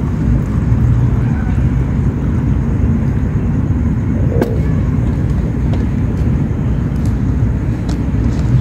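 A steady low rumble of outdoor background noise, with a faint click about four and a half seconds in.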